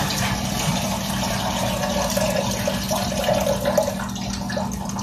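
Water running steadily, with a low steady hum underneath.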